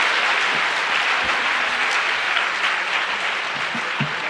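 Audience applauding in a large hall, the clapping slowly dying down.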